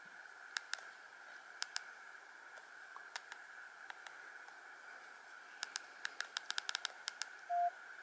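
Sharp clicks from a Nokia 105 (2017)'s keypad buttons being pressed over a low hiss: a few pairs and single clicks, then a quick run of about a dozen. Near the end comes a short, clear beep from the phone, the loudest sound here.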